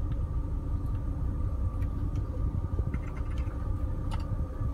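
Proton Waja 1.6 idling, heard from inside the cabin: a steady low rumble with a faint constant higher hum over it and a few light clicks.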